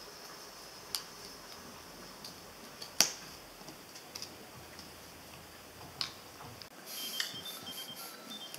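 A few sharp, isolated taps of cardboard jigsaw pieces being set down and pressed onto a hard tabletop, the loudest about three seconds in.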